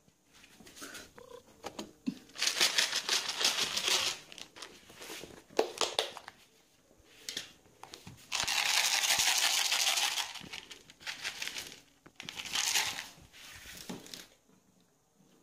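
Plastic bag of dry cat food crinkling and rustling, in three main bursts with smaller rustles between, as it is handled to feed a cat.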